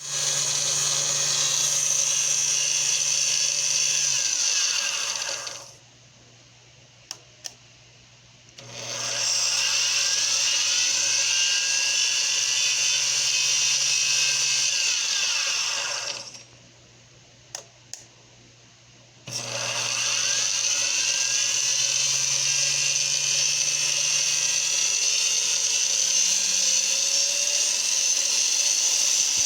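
Home-built mini lathe, made from a 1965 American-Lincoln, running with a steady high whine. It spins down and stops twice, about five seconds in and again around the middle, with two sharp clicks in each pause. Each time it starts again, rising back up to speed.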